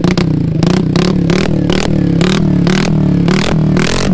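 TVS Ntorq 125 scooter's single-cylinder engine revved through an Austin Racing aftermarket exhaust in quick, repeated throttle blips, about three a second. The engine note rises and falls with each blip, and the exhaust gives a sharp bark each time.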